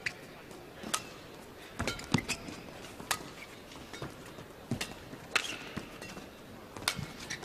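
A badminton rally: sharp racket-on-shuttlecock hits about once a second, with players' shoes squeaking and stepping on the court floor between shots.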